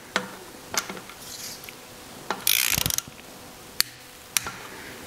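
Ratchet wrench clicking as the oil pressure sender adapter is tightened into the crankcase: a quick run of rapid ratchet clicks about half-way through, with a few single sharp clicks before and after.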